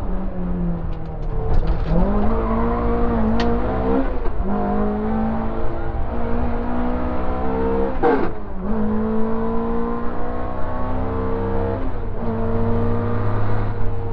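Opel Ascona 400 rally car's four-cylinder engine heard from inside the cabin, pulling hard on a stage. Its pitch climbs and breaks off at each gear change, with a sharp dip and recovery a little past halfway.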